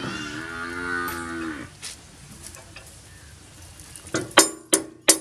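A cow moos once, a long low call that fades out before two seconds in. Near the end come several sharp metal clinks as a steel rotary tiller blade is knocked against the rotor's mounting flange.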